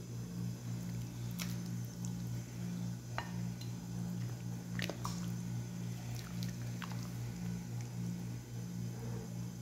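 A metal ladle moving through a glass bowl of fish stew, with a few light, scattered clinks and taps against the bowl, over a steady low hum.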